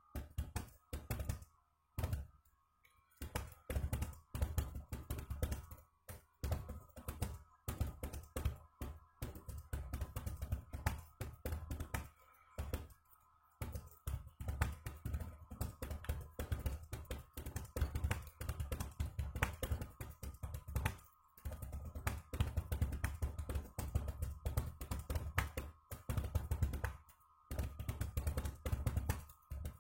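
Fast touch-typing on an external computer keyboard: a rapid run of key clicks at roughly 70 words a minute, broken by brief pauses between bursts.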